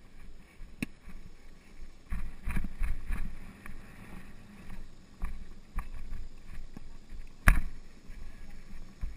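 Polo pony's hooves thudding on turf at a canter or gallop, with the saddle and tack knocking, heard from on the horse. A sharp crack stands out near the end, with a smaller one about a second in.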